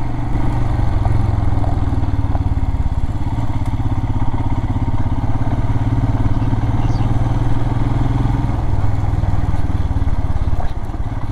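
Royal Enfield Himalayan's single-cylinder engine running at a steady riding speed, heard from the bike as it travels, with a slight shift in pitch about eight and a half seconds in.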